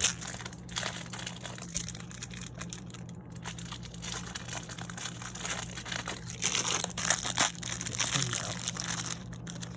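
Plastic packaging of a small toy figure crinkling and crackling as it is handled and opened, with many small clicks, busiest in the middle.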